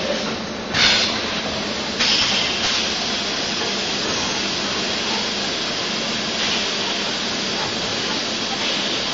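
Extrusion blow molding machine running: a steady mechanical hum under continuous hissing, with a sudden loud burst of air hiss about a second in and another starting at two seconds, typical of the machine's compressed-air pneumatics and bottle blowing.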